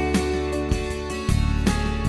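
Instrumental background music: plucked guitar notes over a bass line.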